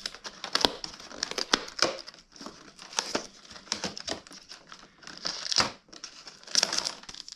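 Packaging crinkling and tearing in irregular crackles and rustles as a compartment of a cardboard Pokémon advent calendar is opened and its wrapped card pack is pulled out.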